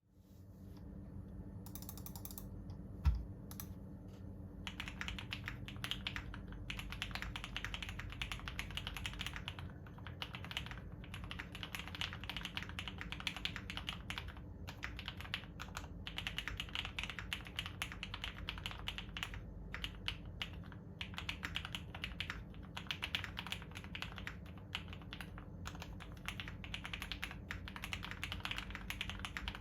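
Typing on a Tofu60 mechanical keyboard with lubed Cherry MX Black Hyperglide linear switches in a polycarbonate plate, under GMK keycaps: a continuous run of key clacks with short pauses, starting about five seconds in. A single thump comes about three seconds in, before the typing begins.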